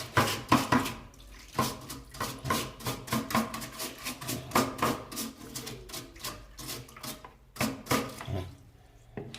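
Irregular plastic knocks and clatter from a washing machine's drain filter being handled and rinsed, with some running water.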